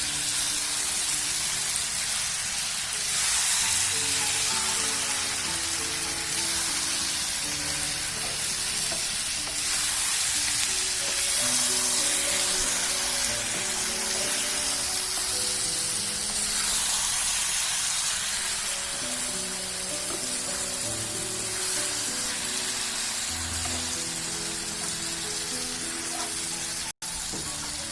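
Chicken frying in onion-tomato masala in a pan, a steady sizzling hiss as it is stirred, with instrumental background music playing underneath. The sound cuts out for an instant near the end.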